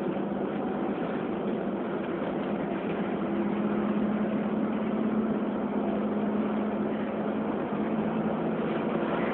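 Volvo B7RLE bus's rear-mounted six-cylinder diesel heard from inside the passenger saloon: a steady engine drone over road noise, rising slightly in pitch and loudness about three seconds in.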